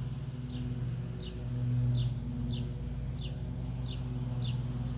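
A steady low engine hum, with a bird repeating a short, falling chirp about one and a half times a second over it.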